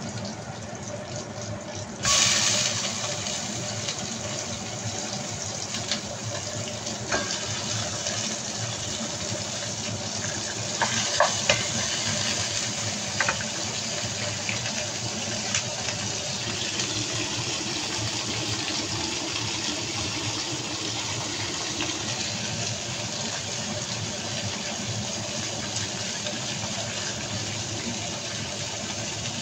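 Raw chicken pieces sizzling in hot oil in a pot, the steady hiss starting suddenly about two seconds in as they go in. A few light knocks sound partway through.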